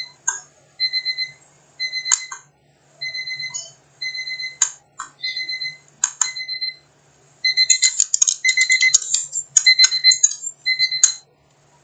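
A phone alarm beeping: a short high beep about once a second. Sharp clicks fall between the beeps, and over the second half come rapid clattering taps.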